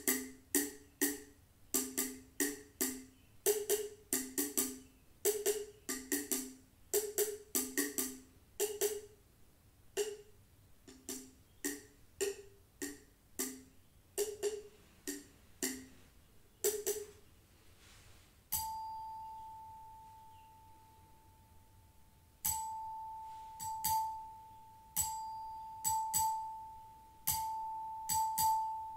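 Meditative hand percussion: quick, uneven strikes with a hollow pitched ring. About eighteen seconds in, a single high note from a small struck singing bowl rings out and slowly fades. From about twenty-two seconds the same bowl is struck again, roughly once a second, each note ringing on.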